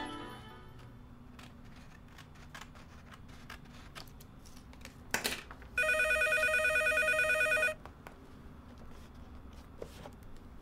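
A telephone rings once, about six seconds in: an electronic warbling ring lasting about two seconds. Before it come soft ticks and rustles of paper being smoothed into a scrapbook, and one sharp tap.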